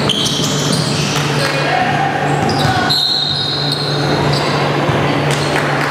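Basketball game in a large gymnasium: a basketball bouncing on the hardwood court, players' voices and short high squeaks, over a steady low hum.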